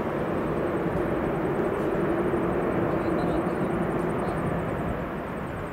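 Jet engine noise from a Boeing 737-800's CFM56-7B turbofans as the airliner slows on the runway after landing: a steady rushing noise with a low hum in it, swelling a little and then easing off near the end.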